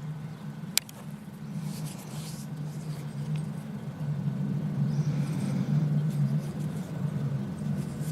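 A steady low mechanical hum, like an engine running in the distance, growing a little louder about halfway through, with a single sharp click about a second in.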